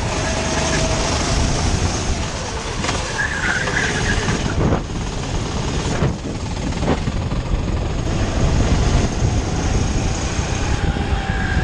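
Rental go-kart engine running at speed, with heavy wind rush and rumble on the kart-mounted camera and a few brief knocks along the way.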